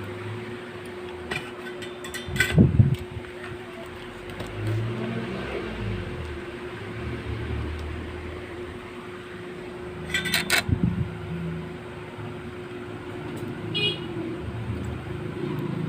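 Short clattering knocks from the mouse circuit board and tools being handled while a replacement micro switch is soldered in, in two brief clusters, over a steady low hum.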